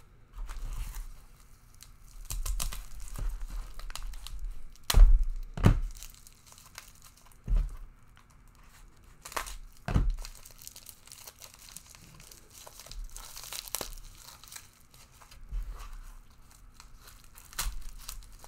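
Packing paper and wrapping being torn and crinkled by hand, with several sharp knocks in between, the loudest about five seconds in.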